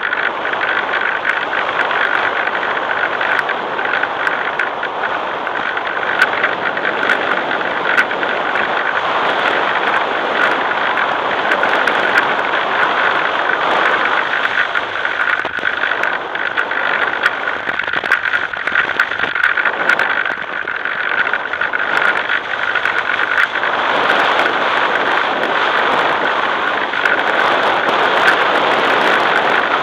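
Motor and propeller of an FPV model plane in flight, heard through the onboard camera's microphone: a steady high whine over a constant rush of wind, with small swells in loudness.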